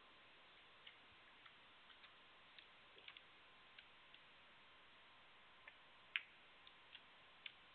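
Snooker balls clicking in a hushed arena: a light tap of the cue tip, then the cue ball striking a red with one sharp click about six seconds in. A few fainter knocks follow as the red is potted.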